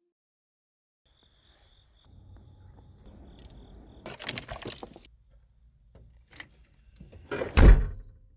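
Fishing gear being packed into a car trunk: a fabric bag and fly reel rustling and clicking, then the trunk lid shut with a loud thump near the end. Insects trill steadily behind it over a low rumble.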